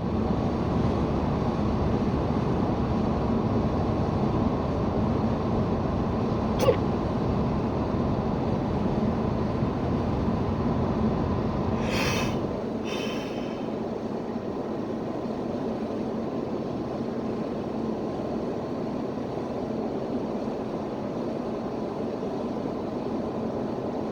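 Steady road and engine rumble inside a moving car's cabin, with one sharp hiccup about seven seconds in. The low rumble drops off about halfway through, as the car slows.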